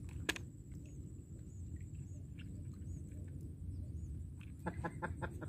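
Quiet open-air lake ambience: a low steady rumble with faint scattered ticks, and a quick run of short sounds about five seconds in.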